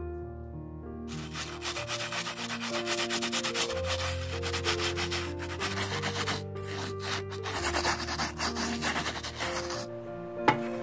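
Fingertips rubbing and sweeping over a textured oil-painting canvas sprinkled with fine ash, a dry scratchy rubbing that starts about a second in and stops shortly before the end, over soft background music. One sharp click near the end.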